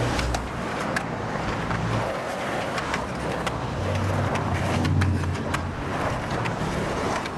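Outdoor traffic noise: a steady hiss of road noise with a low engine hum that rises and falls as vehicles pass.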